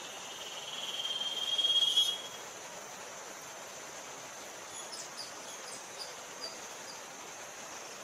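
Rainforest insect chorus: a steady high-pitched insect drone, with one insect's buzzing trill growing louder for about two seconds and then stopping abruptly. A few short faint chirps follow past the middle.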